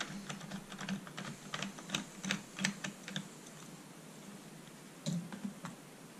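Screwdriver backing out a deep screw from the plastic housing of a Dyson DC43 vacuum: a run of small, irregular clicks for about three seconds, then a few more just after five seconds, over a faint steady hum.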